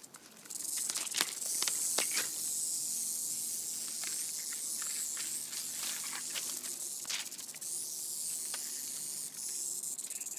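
Northern Pacific rattlesnake buzzing its tail rattle in a steady, high-pitched defensive warning. The buzz starts about half a second in and runs on unbroken, with a few sharp clicks scattered over it.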